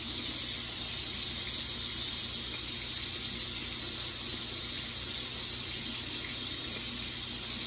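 Bathroom faucet running steadily into a sink, the water splashing over hands that are rinsing a lathered badger shaving brush.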